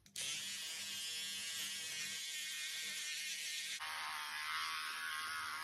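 Electric hair clippers switch on and buzz steadily. Their tone shifts about four seconds in.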